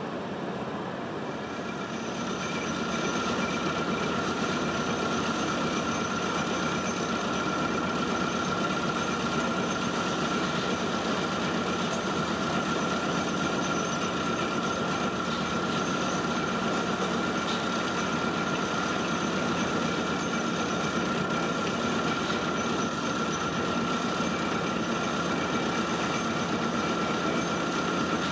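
Vibratory pile hammer driving steel sheet piles: a steady, dense mechanical rattle and buzz with a constant high whine. It starts about two seconds in, after a brief rush of water pouring over a weir.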